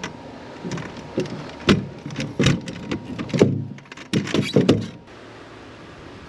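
Aluminium rod-rack tubes and clamp collars knocking and clinking as they are handled and turned on the crossbar, a quick string of sharp knocks, some ringing briefly. It goes quieter about five seconds in.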